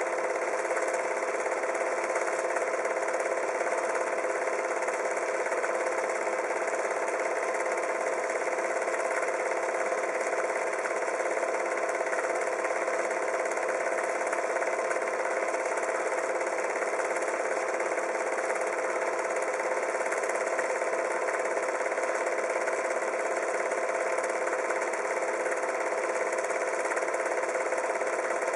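A small motor running steadily, a constant whir with a hiss that does not change.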